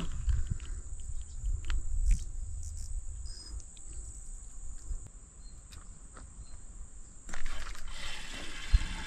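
A steady high insect trill, like crickets, over a low rumbling, with scattered small clicks and knocks; about seven seconds in, a hissing noise sets in.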